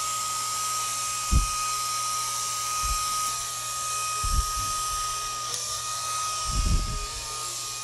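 Small LED-lit flying spinner toy running, its tiny motor and propeller giving a steady high whine, with three dull thumps.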